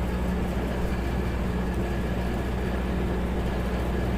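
A steady low mechanical hum with a constant pitch and an even level throughout.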